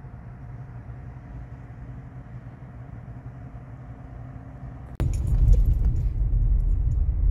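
A steady low outdoor rumble, then, about five seconds in, a louder low rumble inside a car's cabin as the car moves off over a bumpy driveway, with clunks and rattles.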